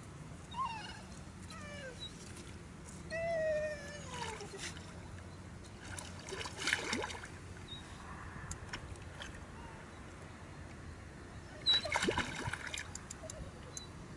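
A hooked fish splashing and thrashing at the surface as it is played close to the bank, with the loudest splash near the end. In the first few seconds there are several high whining calls that fall in pitch.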